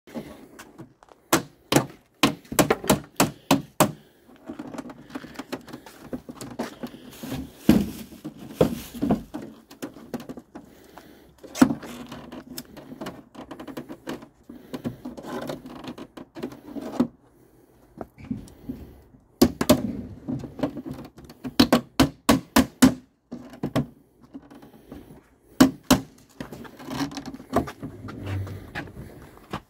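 Metal edge clips on a plywood shipping crate's lid being worked loose with a hand tool to take the lid off: bursts of quick, sharp clicks and knocks, several a second, with pauses between.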